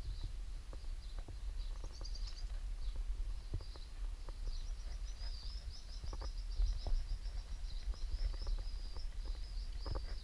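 High-pitched chirping and twittering, broken at first and then a fast, nearly continuous run from about four seconds in, over a low steady rumble and a few faint knocks.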